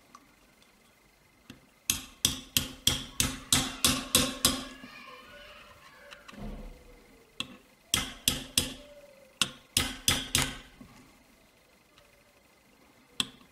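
Quick, sharp metal taps driving the sear pin home in a Sig Sauer P226 pistol frame. They come in two runs of about four taps a second, each lasting a couple of seconds, with a few single taps in between.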